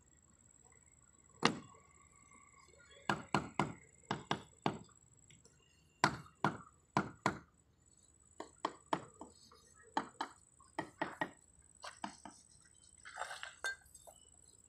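Sharp knocks of a mason's trowel tapping clay roof tiles as they are laid, coming in quick clusters of two to five strokes every second or two, with a brief scrape near the end.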